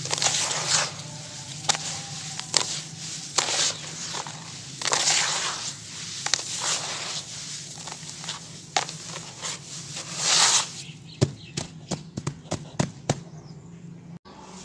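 Handfuls of dry, dark, crumbly grit being scooped and poured back into a basin by hand, heard as repeated gritty hissing showers of falling grains. Near the end come a run of short sharp crunching crackles as the crumbles are pressed and broken.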